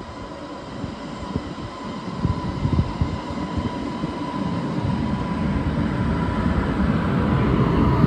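Taiwan Railway EMU500 electric multiple unit pulling out of a station: a steady high tone from the traction equipment over rumbling wheels on rail, growing louder as it gets under way, with a faint rising whine near the end.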